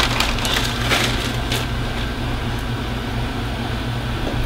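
A few light clicks and rustles of small handling in the first second and a half, over a steady low hum.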